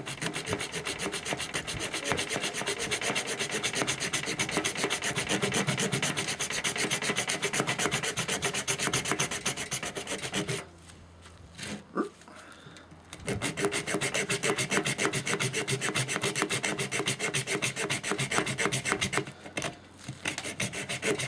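Leatherman Blast's folding saw blade cutting through a coconut shell with steady back-and-forth rasping strokes. The sawing stops for about three seconds some ten seconds in and pauses briefly again near the end.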